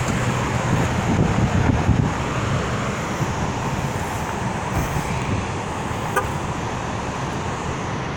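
Floodwater rushing through open flood gates during a flood release, a steady, loud rush of water.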